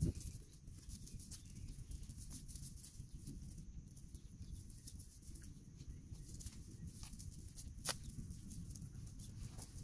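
Soft clicks and rustles of hands working through a wet cast net's mesh and its lead sinker chain, over a low steady rumble, with one sharper click about eight seconds in.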